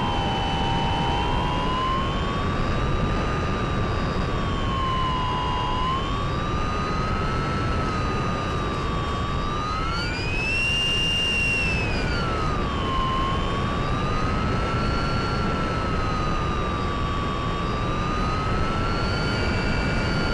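Brushless electric motor (Sunnysky 1240 kV) spinning an 8x6 propeller on a Mini Talon FPV plane, heard from on board over a steady rush of wind. Its whine drifts slowly up and down in pitch as the autopilot varies the throttle during return-to-home, and is highest about ten seconds in.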